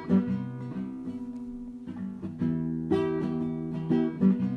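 Background music: an acoustic guitar plucking notes over held chords at an unhurried pace.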